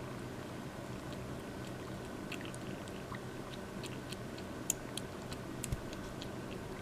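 Kitten lapping milk: a quick run of small wet clicks starting about two seconds in, over a steady low hum.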